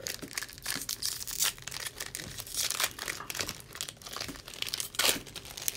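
Foil Magic: The Gathering booster pack wrappers crinkling and tearing as they are opened by hand, a quick run of crackles with a louder one near the end.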